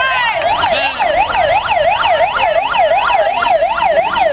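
Electronic siren on its yelp setting, its pitch sweeping rapidly up and down about four times a second.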